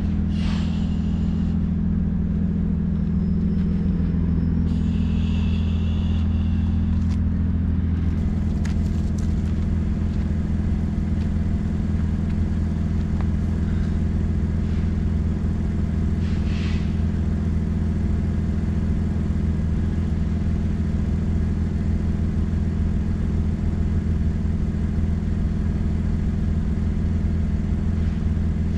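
Car engine idling with a steady low exhaust drone from a broken exhaust pipe under the car, which the owner suspects has a hole in it.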